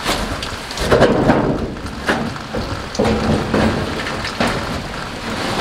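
Rain falling on the van's sheet-metal body, with about half a dozen irregular knocks and thumps from work on the roof.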